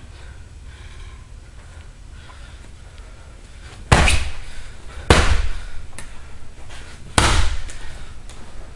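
Three hard punches land on a hanging heavy punching bag, the first about four seconds in and the others about one and three seconds later. Each is a sharp smack with a short room echo.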